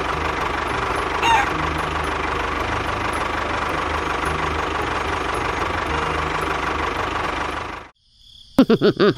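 Tractor engine running steadily with a low knocking chug, with a short falling bird-like call about a second in. Near the end the engine cuts off abruptly, and after a moment of silence a quick run of bouncing, wobbly comic tones starts.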